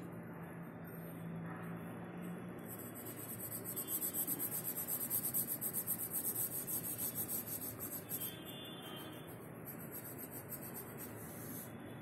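Pencil scratching on notebook paper in quick back-and-forth strokes, about four a second, starting about three seconds in and stopping about five seconds later; fainter scratching follows.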